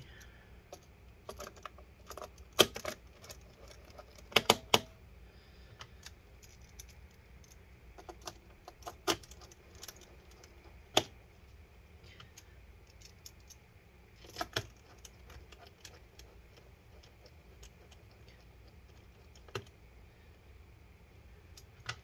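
Scattered light clicks and taps of a small Phillips precision screwdriver driving screws into a laptop's plastic bottom cover, with a few sharper clicks, a quick cluster of them about four and a half seconds in.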